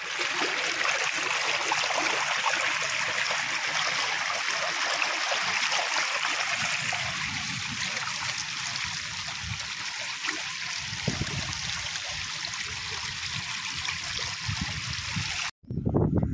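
Shallow stream water flowing and rippling steadily over flat rock. It cuts off suddenly near the end.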